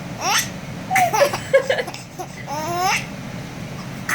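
Baby laughing in short, high-pitched bursts, ending in a long rising squeal about three seconds in.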